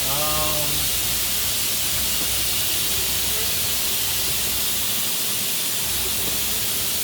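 Makino F5 vertical machining center spindle running steadily at high speed, around 12,000 RPM, giving an even, unchanging hiss.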